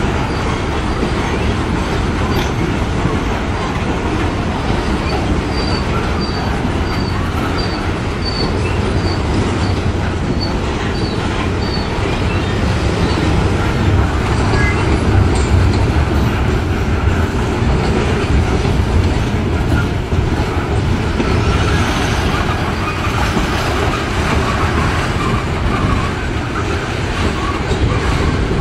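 Norfolk Southern coal train rolling past close by: loaded coal cars rumbling steadily over the rails, a continuous heavy wheel-on-rail noise.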